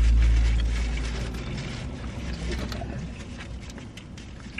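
A deep low rumble, loudest at the start and fading away over the next few seconds, under a faint hiss with scattered small clicks and rustles.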